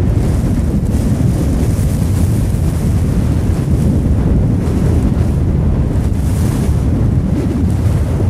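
Wind buffeting the microphone: a loud, steady, low rumble of noise.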